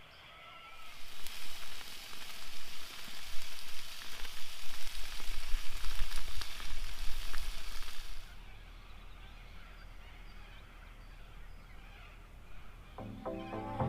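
Food sizzling and crackling in a hot pan, a loud hiss that starts just under a second in and cuts off suddenly about eight seconds in.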